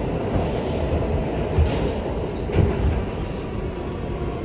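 R211A subway car heard from inside: the steady rumble of the wheels on the track, with brief high-pitched wheel squeals near the start.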